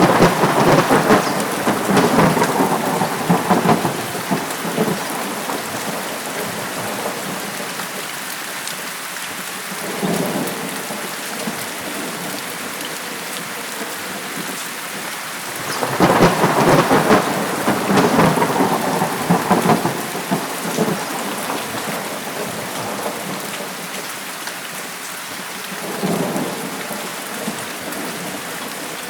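Steady rain with rolling thunder. Two long crackling rumbles last about four seconds each, one at the start and one a little past halfway, with a shorter, fainter rumble after each.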